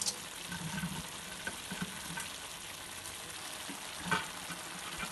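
Chicken and vegetables frying in a pot: a steady sizzle. Two light knocks come through it, one right at the start and one about four seconds in.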